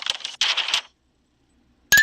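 Dense crackling, crunching noise that stops just under a second in. After a pause, a single sharp metallic clink near the end, with a brief two-tone ring.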